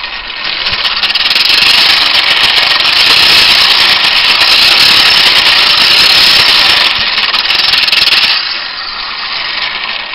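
Vintage McCormick hand-cranked sickle grinder sharpening a sickle mower blade: its round grinding stone rasps steadily against the steel knife sections as the crank is turned. The grinding builds over the first second or two and eases to a softer rasp about eight seconds in.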